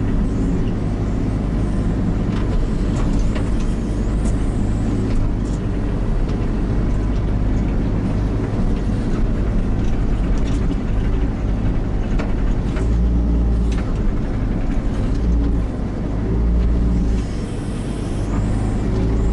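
Kubota KX121-3 mini excavator's four-cylinder diesel engine running steadily under working load as the machine spreads and rough-grades soil. There are a few sharp clicks and knocks, and the low engine note swells for a few seconds past the middle.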